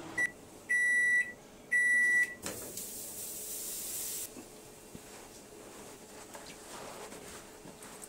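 Microwave oven beeping: one short beep, then two longer beeps about a second apart, the usual end-of-cycle signal. A hiss lasting under two seconds follows.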